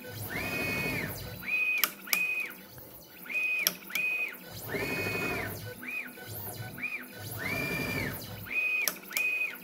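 Onefinity CNC's stepper motors driving the ball-screw axes through a series of short moves, each a whine that rises in pitch, holds, then falls as an axis speeds up and slows down. There are a few sharp clicks among the moves.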